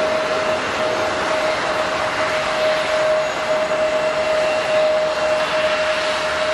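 Jet airliner engines running: a loud, steady rush of noise with a single held tone in it.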